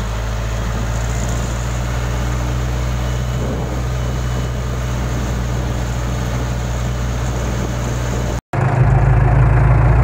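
Case backhoe loader's diesel engine running steadily while the machine drives. The sound drops out for an instant about eight and a half seconds in and comes back a little louder.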